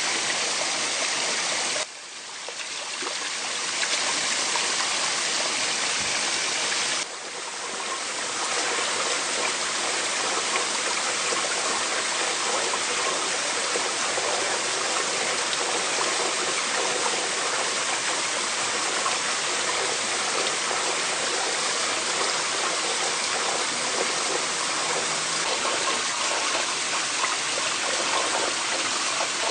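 Steady rushing of a stream spilling over rocks in a small waterfall. The water sound drops away suddenly about two seconds in, and again around seven seconds, each time building back up within a second or two.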